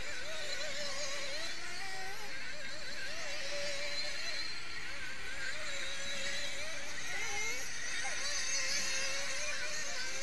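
Several 1/8-scale nitro buggy engines running at once, a buzzing whine that rises and falls in pitch as the cars throttle on and off around the track.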